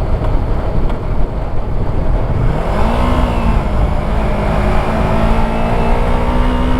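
Yamaha YZF-R3's parallel-twin engine running under way, half buried in heavy wind rush on the helmet microphone. About three seconds in, the engine note rises, then holds steady.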